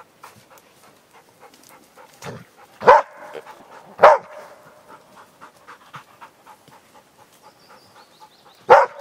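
East Siberian Laika baying at a wild boar: two single barks about a second apart in the middle, then a quick run of barks starting near the end.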